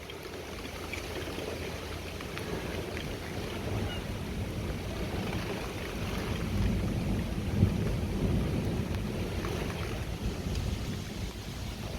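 Rainy outdoor ambience: a steady low rumble of wind with a hiss of rain or dripping water and a few faint ticks, and a brief thump about two-thirds of the way through.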